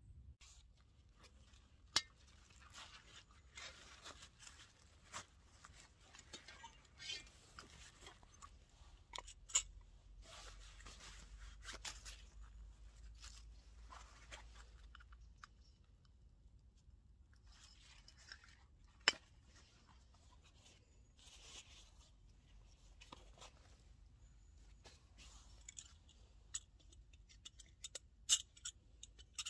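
Small handling sounds of a camping gas stove and its Campingaz canister: scattered sharp clicks and metal clinks, a few of them louder, with soft rustling in between.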